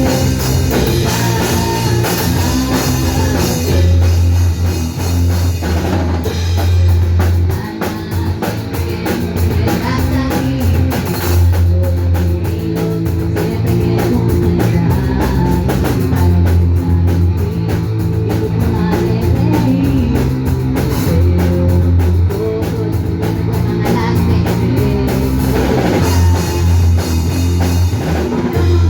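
Live rock band playing a song, with a drum kit keeping a steady beat under guitars and bass notes.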